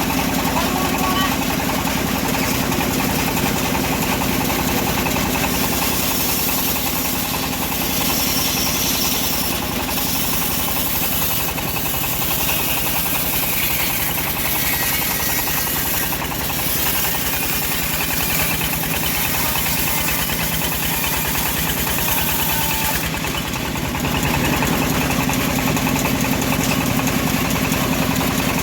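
Engine of a homemade bandsaw mill sawing a teak log, running steadily. A higher hiss joins it about five seconds in and drops away again about five seconds before the end.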